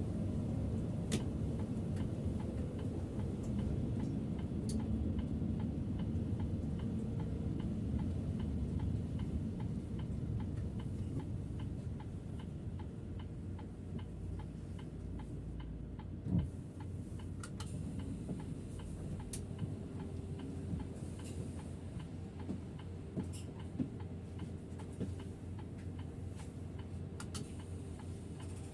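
Turn-signal indicator of a Setra S 531 DT double-decker bus ticking steadily in the cab, over low engine and road rumble that eases about halfway through. A single thump comes near the middle.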